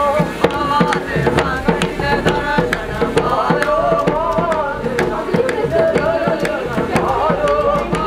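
A male singer performs a Dogri folk song with a hand to his ear, singing held, wavering lines, while a dhol drum beats a steady rhythm under the voice.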